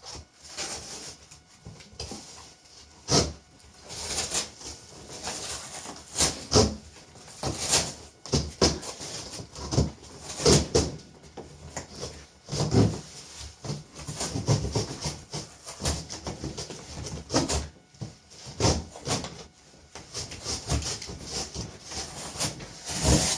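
Cardboard box and packaging being handled and pulled apart: irregular rubbing, scraping and knocks, with no steady rhythm.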